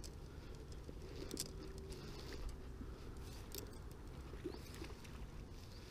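Faint pigeon cooing over a steady low background rumble, with a few small clicks.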